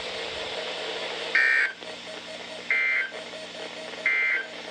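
Three short warbling data bursts from a NOAA Weather Radio broadcast, about a second and a half apart: the EAS/SAME end-of-message tones that close the weekly test transmission. They sound over steady radio hiss.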